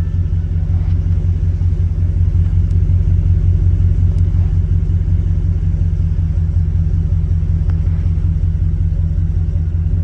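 Steady low rumble inside a vehicle's cabin: the engine running with road noise as the vehicle moves slowly.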